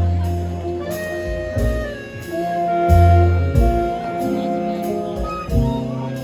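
An orchestra playing a jazz arrangement: held chords over long, deep bass notes, with a few sharp percussive hits.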